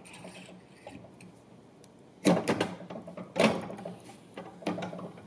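Three separate knocks with a short ring after each, about a second apart, as the General Pump 47 Series pump's manifold head is handled and fitted back onto the pump. Lighter handling noise comes before them.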